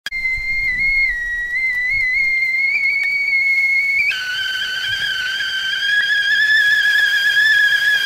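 Whistling tea kettle at the boil: a steady high whistle, wavering slightly in pitch, that jumps to a lower, fuller whistle about four seconds in.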